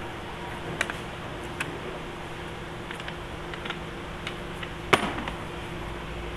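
Scattered small clicks and taps of a screwdriver and metal bolt against the plastic steering column of a kids' ride-on jeep as the bolt is worked out, with one louder knock about five seconds in. A steady low hum runs underneath.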